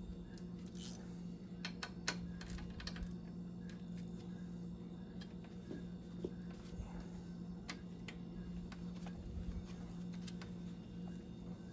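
Scattered light clicks and taps of hand tools and small parts being handled while work goes on in a car's engine bay, thickest in the first few seconds and sparse after, over a steady low hum.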